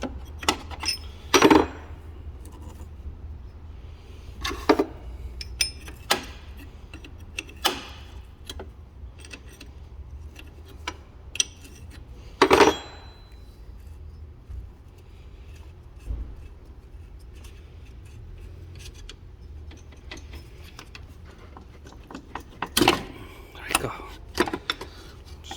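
Metal hand tools clinking and knocking in a car's engine bay, a wrench working loose a 17 mm line fitting in front of the alternator. The knocks are scattered with pauses between them; the loudest come about a second and a half in, near the middle and near the end.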